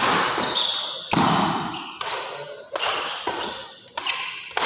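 Badminton doubles rally: rackets striking the shuttlecock about once a second, each sharp hit ringing on in the hall's echo, with short high squeaks between the hits.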